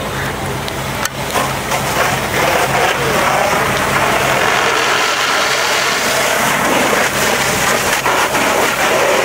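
Fire hose nozzle spraying a stream of water onto a burning, charred wooden structure: a steady rush of water that thickens about a second in, just after a sharp knock.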